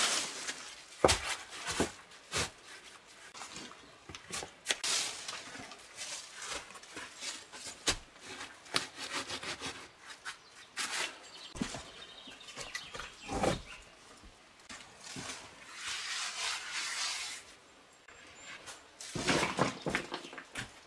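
Dry fallen leaves rustling and crunching as they are swept aside by gloved hands, with irregular sharp knocks of stones being set down among them.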